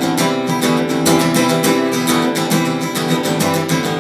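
Acoustic guitar with a capo, strummed chords in a steady rhythm, with no singing.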